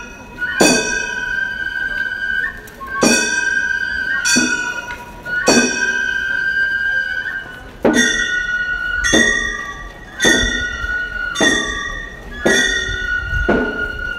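Gion-bayashi festival music: small bronze hand gongs (kane) struck about once a second, each strike ringing on, over a held bamboo-flute melody that steps between notes.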